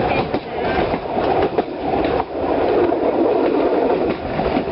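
Narrow-gauge Sóller railway's 'Red Arrow' electric train heard from on board while running along the track: a steady, loud rumble and rattle of the wheels and carriage, with irregular clacks from the rails.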